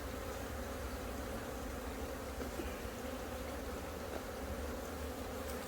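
Honeybees buzzing steadily around the hive: a continuous, even hum from many bees as the colony moves into a new brood box.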